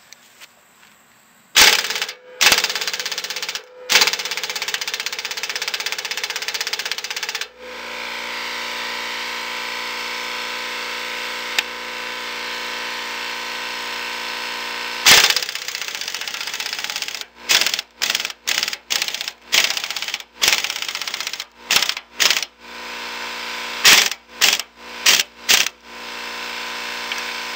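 Pneumatic impact wrench set to 230 ft-lb at 100 psi, hammering on tightly torqued, rusted axle-bracket bolts of a disc harrow. It runs in short bursts at first, then in a long continuous run through the middle, then in a rapid series of short trigger bursts near the end as the bolts break loose.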